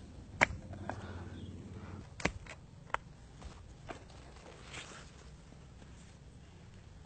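A few scattered sharp knocks and snaps, the loudest about half a second in and again near two and a half seconds, over a low rumble.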